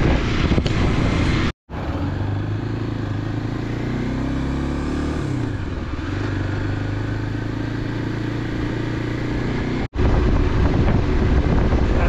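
Motorcycle engine running on the road, its pitch climbing and then dropping about five seconds in as the revs change. Two abrupt breaks, one early and one near the end, where the sound cuts out for an instant between clips.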